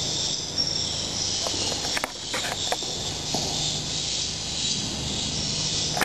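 A steady, high, insect-like chirring over a low hum, with a few short clicks about two to three seconds in.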